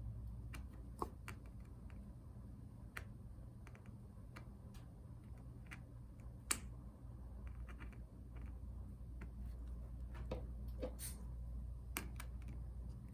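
Scattered small clicks and taps of hand tools and small parts during MacBook Pro disassembly, a few sharper clicks among them, over a steady low hum.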